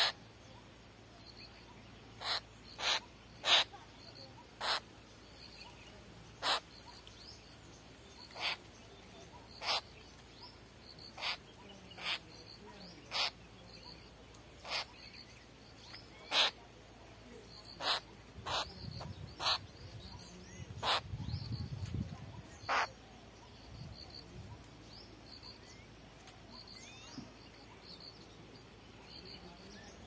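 Babbler giving short, harsh single call notes, about twenty of them at irregular intervals, stopping about three-quarters of the way through. A low rumble lasts a few seconds about two-thirds of the way in.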